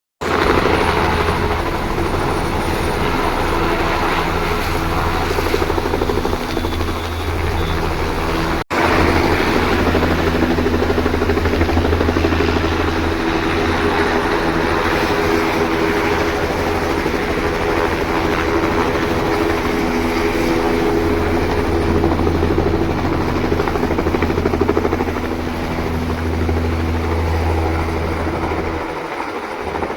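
Helicopter running: a loud, steady rotor and engine sound, with a brief break about nine seconds in.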